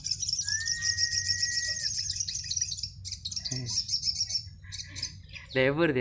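Caged sogon sunbirds chirping and twittering in rapid high trills, with one long steady whistle about half a second in. Near the end a short, louder voice-like call cuts in.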